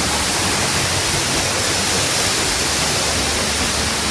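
Waterfall pouring down close by: a loud, steady rush of falling water that does not change.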